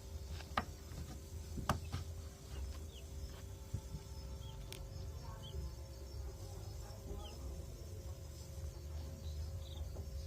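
Faint, short high peeps from a newly hatched chick, several scattered calls over a steady low hum, with a few sharp clicks in the first five seconds.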